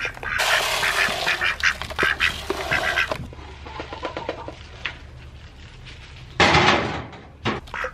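A plastic scoop digging into pellet chicken feed in a plastic feed bag, the bag crinkling and the pellets rattling, for about three seconds. Then quieter, with hens clucking, and a short rush of pellets poured into a feeder about six and a half seconds in.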